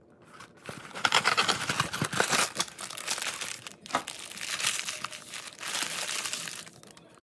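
Plastic parts bag from a Lego set crinkling as it is handled. It gives dense, irregular crackles that start about a second in and cut off abruptly just before the end.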